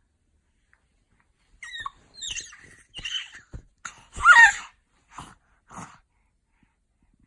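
A baby's high-pitched screeches, a run of short squeaky cries. The loudest and longest is a wavering squeal in the middle, followed by two brief, quieter ones.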